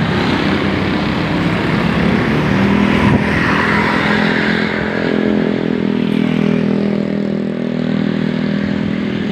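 Heavy vehicle, likely a tour bus, going past close by: engine and road noise throughout, with a steady engine drone coming up about two and a half seconds in.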